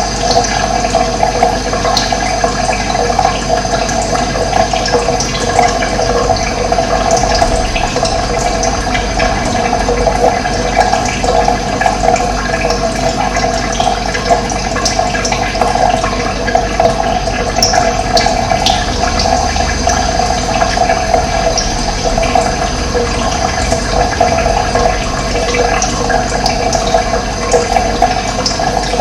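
Steady rush of running water, with a few brief faint bird chirps over it.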